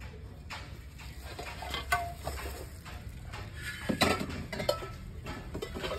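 Clay handi pots being handled on a concrete floor as their insides are smeared with oil: scattered knocks, clinks and scrapes of the earthenware, the sharpest about two and four seconds in, over a steady low rumble.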